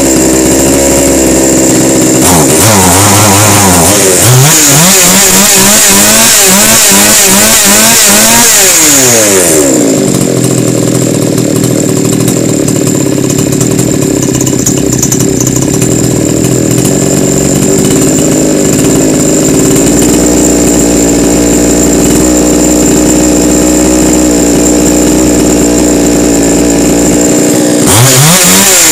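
Chinese two-stroke chainsaw engine running while its carburetor is tuned: it is revved up and down several times, settles into a steady idle, and revs up again near the end. The saw had been bogging when the throttle was opened, and the carburetor's mixture and idle screws are being set to cure it.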